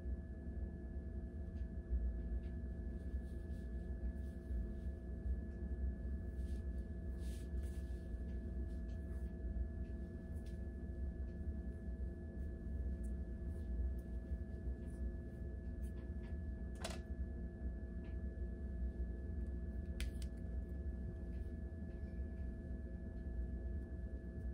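Steady low electrical hum with a few faint steady tones over it, and faint rustles of hair being combed and handled, with two brief sharp ticks near the end.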